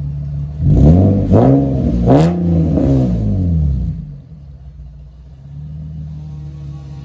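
Nissan 350Z's 3.5-litre V6 idling, then revved several times in quick blips, each rising and falling in pitch, before settling back to idle.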